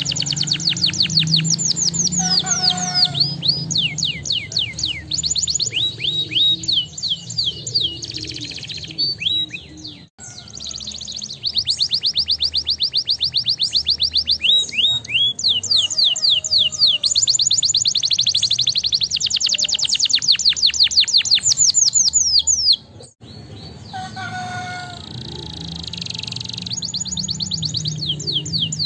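Domestic canary singing: long, rapid trills of quick downward-sweeping notes, many per second, the trill type changing from phrase to phrase, with two brief breaks, one near the middle and one about two-thirds through.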